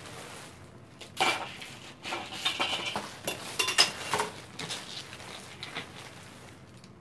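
Hard artificial decorative fruit pieces clinking and clacking against each other as they are handled out of a bag: a run of light knocks starting about a second in and thinning out after about five seconds.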